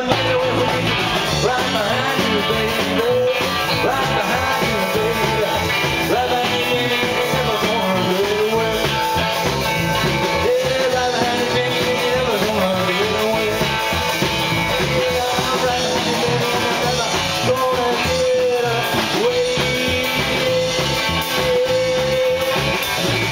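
Rock and roll band playing live through a PA, an electric guitar carrying a lead line with bent notes over the rhythm.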